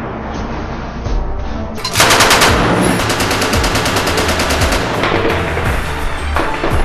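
Automatic machine-gun fire in rapid bursts of about ten shots a second, starting suddenly about two seconds in.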